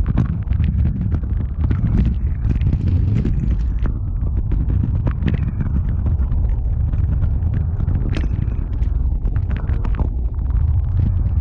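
Kick scooter's small hard wheels rolling over rough asphalt: a steady loud low rumble, broken by frequent sharp rattling clicks as the wheels hit bumps and cracks.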